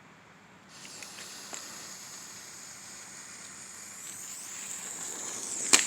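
A lit firework fuse sizzling, starting about a second in and growing steadily louder, then sharp firecracker bangs start right at the end.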